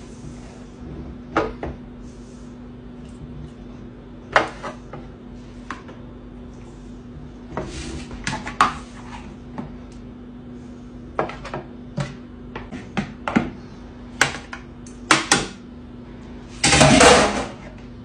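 Metal tongs clacking and raw chicken drumsticks being set down in metal baking pans: a series of separate sharp clicks and knocks, with a louder, longer scraping noise about a second before the end. A steady low hum runs underneath.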